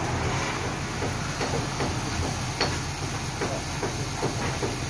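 Truck engine running steadily to power a Furukawa Unic truck-mounted crane's hydraulics during a lift, with a string of light ticks, two or three a second, from about a second in.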